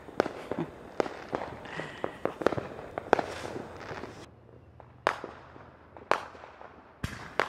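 Neighbourhood fireworks and firecrackers going off: a string of sharp bangs and pops, several a second, for about the first four seconds, then three single bangs about a second apart.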